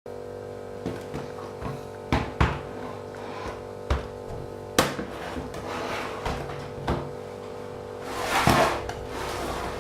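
Hard knocks and clicks of a laptop being handled and worked on at a bench, a few sharp taps spread through, then a longer scraping or rustling swell near the end, over a steady hum.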